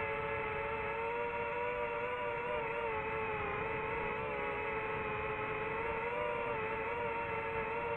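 FPV quadcopter's brushless motors and propellers whining steadily, recorded on the drone itself, with the pitch wavering slightly as the throttle shifts.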